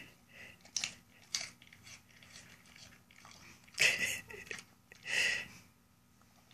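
A husky biting and chewing a whole apple, its teeth crunching through the crisp flesh in a few sharp crunches, the loudest about four and five seconds in.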